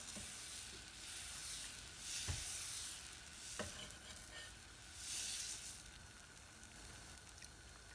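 Pearl millet dosa batter sizzling faintly on a hot nonstick pan while the ladle spreads it round in circles, a soft swishing hiss that swells and fades with each sweep. A few light clicks as the ladle touches the pan.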